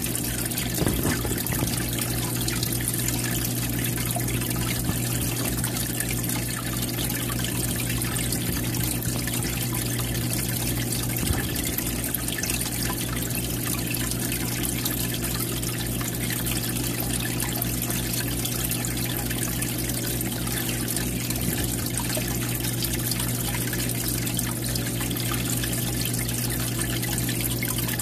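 Aquarium filter outflow trickling and splashing steadily into the tank water, with a steady low hum underneath.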